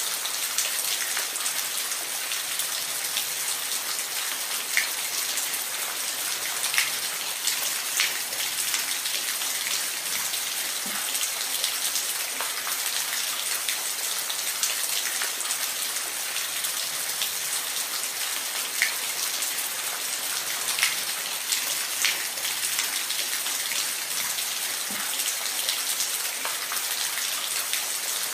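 Steady hiss of falling water, with scattered sharp ticks like drops striking a surface every second or two.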